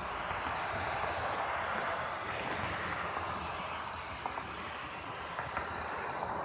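Rain falling steadily in a thunderstorm, with a few sharp taps of drops.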